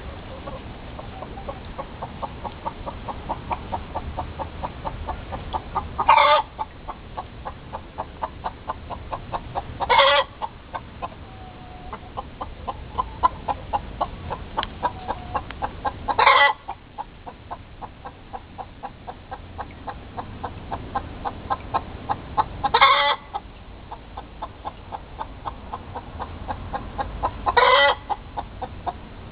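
Domestic hen giving the egg-laying song: runs of rapid clucks, each building to a loud drawn-out squawk, five times over. It is the call a hen gives just after laying an egg.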